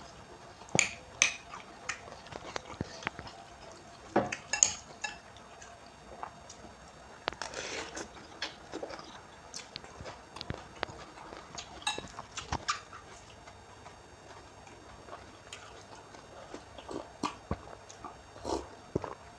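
Close-up eating sounds: cutlery clinking and scraping against a bowl, with mouth sounds of chewing instant noodles and raw bean sprouts, in scattered short clicks and brief bursts.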